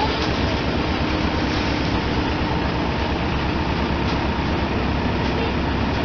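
Tractor-driven paddy thresher running steadily under a diesel tractor engine. The sound is a dense, even mechanical clatter over a rapid low throb.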